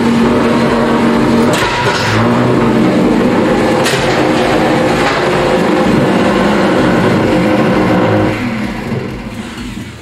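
Beetleweight combat robot running its motors: a loud, steady whine that shifts a little in pitch, with a few sharp knocks about one and a half, two and four seconds in. The noise fades away near the end.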